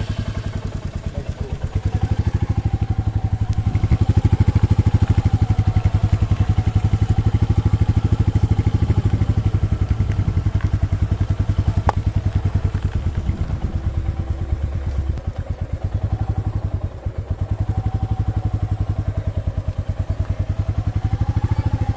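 Royal Enfield Meteor 350's single-cylinder engine running as the bike pulls away and rides slowly, a steady, even thumping exhaust beat that grows louder about two seconds in. The engine dips briefly near the end, and there is a single sharp click about halfway through.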